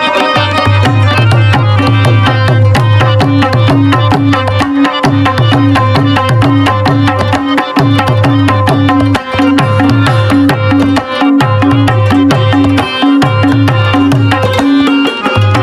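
Instrumental passage of Pashto folk music: tabla keeping a steady rhythm with deep bass strokes, under sustained harmonium chords and plucked rabab.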